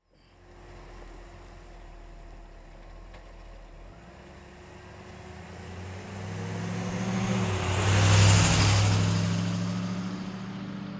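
Restored vintage pickup truck driving past: its engine grows steadily louder as it approaches, peaks about eight seconds in with a slight drop in pitch as it goes by, then fades away.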